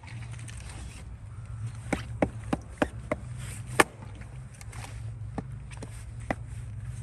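Hatchet blade striking and splitting firewood on a chopping block: a string of sharp knocks, several in quick succession about two to three seconds in, the loudest just before four seconds, then a couple of fainter ones.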